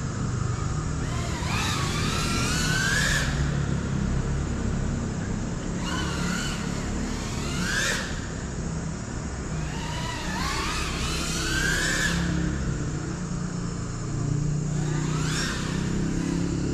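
FPV cinewhoop drone (GEPRC CineLog35) motors and propellers whining, rising in pitch with each throttle push and then cutting back, about four times, over a low steady rumble.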